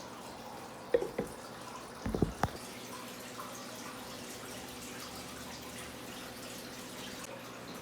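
Water dripping and trickling from a tap, with a few sharp knocks of things being handled about one second in and again just after two seconds.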